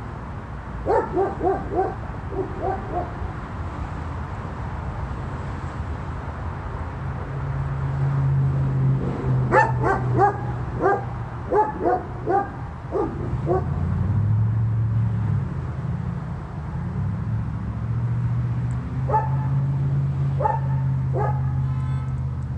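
German shepherd giving short, high barks in three bursts: a few near the start, a longer run of about a dozen in the middle, and a few more near the end. A low steady hum sets in a third of the way through.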